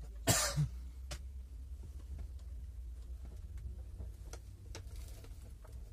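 Steady low hum inside a passenger train carriage, with a sharp knock about a third of a second in, then a low thud and scattered light clicks.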